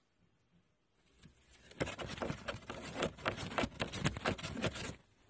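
Scratchy rustling of a cat's fur rubbing right against the phone's microphone: a rapid, uneven run of rough scrapes that starts about two seconds in and lasts about three seconds.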